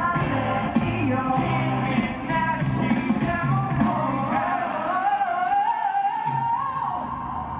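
Male pop vocal group singing live, with drums and bass. About four seconds in, the drums and bass drop out, leaving one held, wavering vocal line that glides down and ends near the end.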